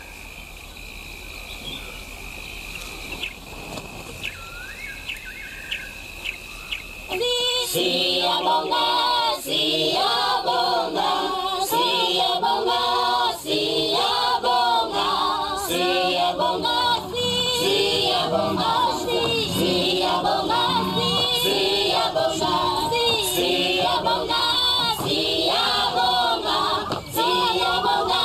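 A choir of voices singing, which comes in loudly about seven seconds in. Before that there is a quieter stretch of ambience with a steady high thin tone and a few chirps.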